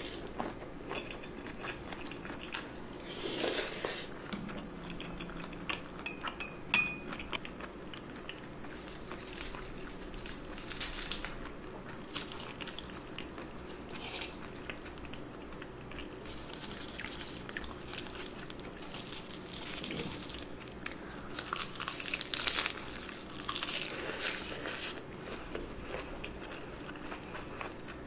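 Close-miked chewing and wet mouth sounds of a person eating marinated raw shrimp (saeujang) with rice, with a few sharp clicks of a spoon against the bowl.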